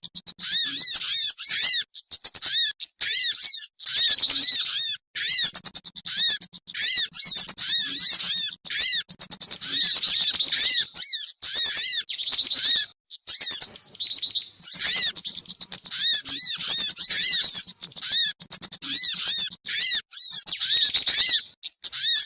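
Bird-trapping lure recording of small songbirds' calls, the mixed jingjing batu, sogon and kemade calls used to pull wild small birds down. The calls are rapid, high, arching chirps in dense runs of a second or two, broken by short gaps.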